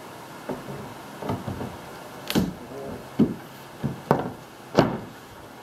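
Plywood door panel knocking against the edges of a teardrop camper's door opening as it is worked into place: a string of irregular wooden thumps, the loudest near the end.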